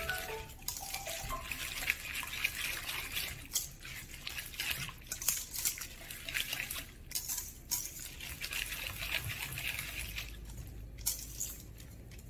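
Wire whisk stirring thick, wet cake batter laden with chopped nuts and dried fruit in a stainless steel bowl: repeated wet swishing strokes with frequent short clicks.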